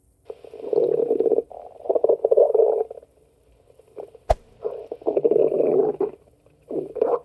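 Stomach growling sound effect: about four long growls, one after another, with a single sharp click between the second and third.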